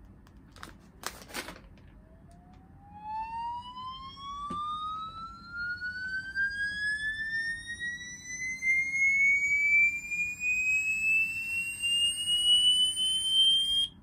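A 'mosquito sound' test tone played through a smartphone speaker: one whistle-like tone gliding slowly and steadily upward in pitch for about twelve seconds, growing louder, then cutting off suddenly. A few clicks come just before it starts.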